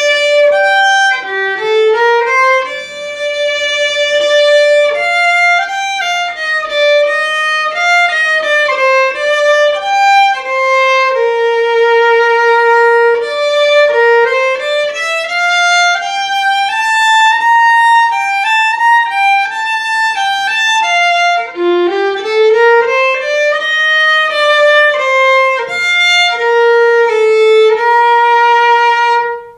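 Solo acoustic violin, unaccompanied, bowed through a flowing melody of sustained notes that move up and down by step.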